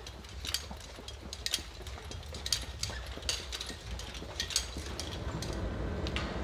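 Footsteps on a hard corridor floor, sharp steps about once a second, then near the end a steady low rumble of a moving electric cart.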